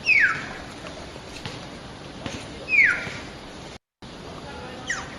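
Hill myna giving loud whistles that slide steeply down in pitch, one at the start and another about two and a half seconds later, with a shorter pair near the end.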